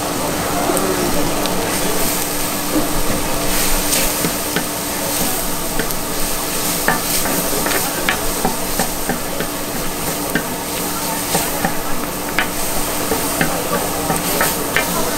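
Food sizzling on a hot flat-top griddle while being stir-fried, with metal spatulas scraping and ticking against the griddle again and again.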